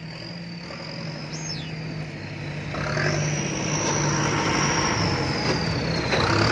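Six-wheel truck's diesel engine labouring under load, with a high turbo whistle over it. The revs and the whistle climb about three seconds in and again near the end.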